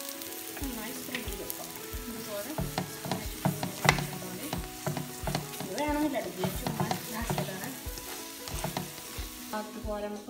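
Sweet egg-and-sugar porotta (murtabak) sizzling in hot oil in a frying pan: a steady hiss with scattered sharp clicks and knocks.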